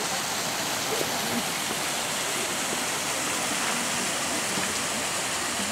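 Small garden waterfall spilling into a pond: a steady, even rushing of water.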